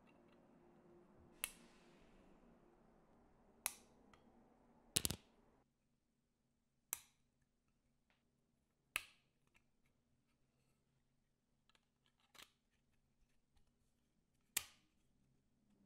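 Sharp snips of a plastic male header pin strip being cut into lengths with small side cutters: about seven separate snaps, irregularly spaced a second or two apart, one of them doubled.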